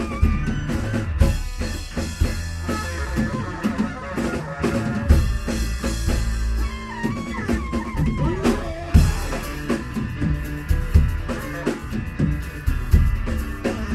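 Rock band playing live: a drum kit with bass drum and rimshots driving the music under electric guitar.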